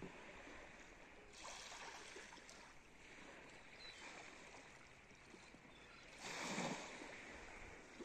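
Faint wash of small waves on a calm sea, with two soft swells, about a second and a half in and again near the end.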